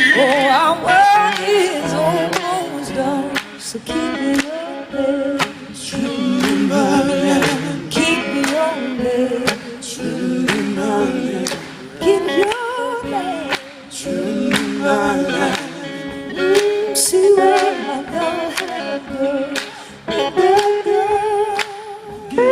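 Live blues-gospel band performance: a wavering, voice-like lead melody over drums, with the band playing underneath.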